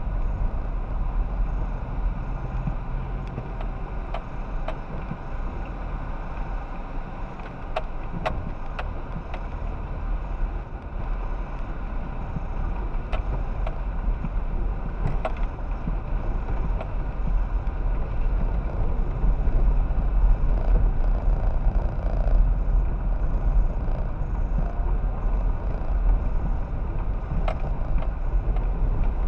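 Car driving slowly over a rough dirt and gravel road, heard from inside the cabin: a steady rumble of engine and tyres, with a few sharp clicks and knocks from stones and the bumpy surface.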